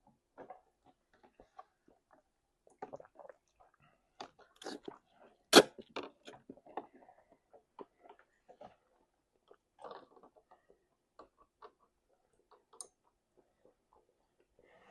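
A person chewing food close to the microphone, with scattered wet smacks and clicks of the mouth. A single sharp click about five and a half seconds in is the loudest sound.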